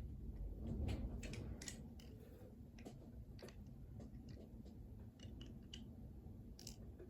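Faint scattered clicks and light taps of small die-cast and plastic toy vehicles being handled and set down, the loudest knock about a second in.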